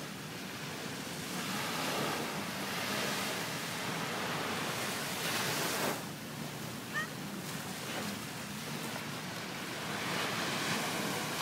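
Small waves breaking and washing up a sandy shore, the surf swelling and ebbing every few seconds, with a short high chirp about seven seconds in.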